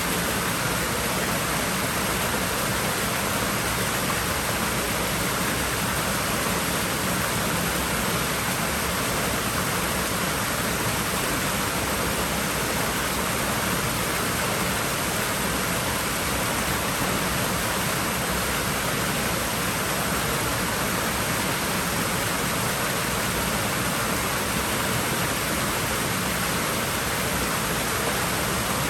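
Swimming-pool water rushing and splashing steadily, an even hiss like a small waterfall that does not change.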